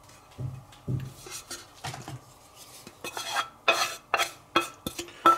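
Kitchen utensils knocking and clinking against dishes: two dull knocks, then from about three seconds in a quick run of sharp clinks and scrapes, several a second.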